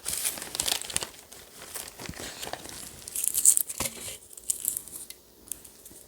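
Dried catnip leaves crinkling and crackling as they are pulled off their stems by hand, busiest in the first four seconds and dying down after that.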